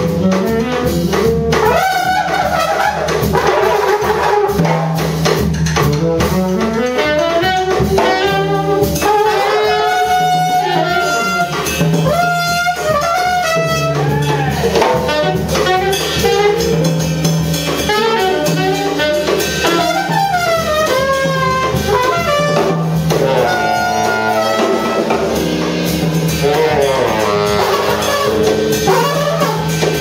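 Small jazz group playing a loose improvisation: trumpet and saxophone lines weaving and sliding over busy drums, with a low note recurring underneath.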